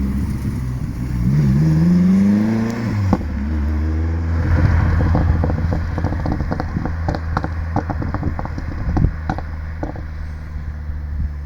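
Turbocharged 1.3-litre 8-valve four-cylinder engine of a VW Polo 86c revving up once, then dropping back to a low steady run with a rapid scatter of crackles and pops.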